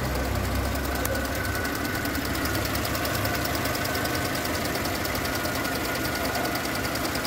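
Mercedes engine idling while its EVAP canister purge valve ticks fast and evenly, a loud, annoying noise. Here it is the valve working normally while it is activated, not a fault.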